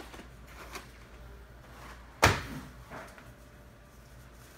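One loud, sharp knock about two seconds in, like a hard object set down or banged against a surface, with a short ring-out and a few faint lighter clicks of handling around it.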